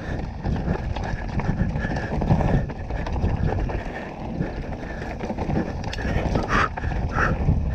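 Full-suspension mountain bike (a 2018 Canyon Torque CF9 Pro) riding fast down a rough trail: tyres rumbling over the ground and the bike rattling and clattering over rocks and roots.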